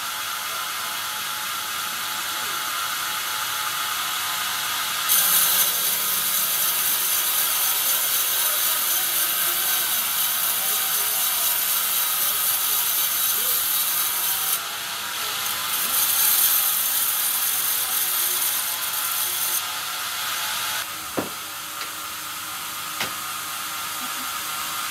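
Sawmill bandsaw headrig running, its band blade cutting lengthwise through a pine log as the carriage feeds it: a steady high-pitched hiss and whine that grows louder during two long stretches while the blade is in the wood. A few sharp knocks near the end as sawn timber is handled.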